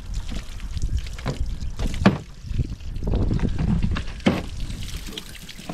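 Garden hose water running and splashing onto a plastic tabletop while chicken pieces are rinsed, over a low rumble, with a few sharp knocks, the loudest about two seconds in.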